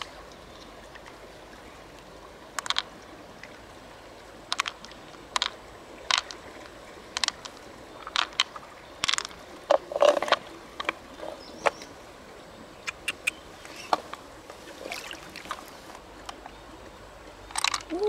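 Irregular hard clicks and taps of mussel shells and pearls being handled, about one a second, with a louder knock about ten seconds in, over a faint steady rush of river water.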